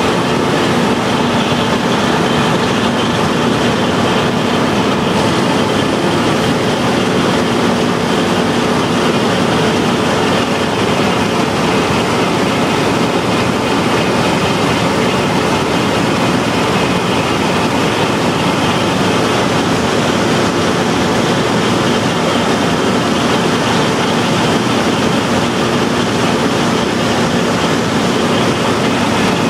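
Combine harvester running steadily under working load, with its unloading auger discharging grain into a grain trailer running alongside.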